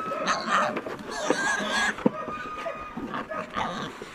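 A group of pigs grunting and squealing as they eat from a feeding trough, in short repeated calls, with a louder, higher squeal about a second in.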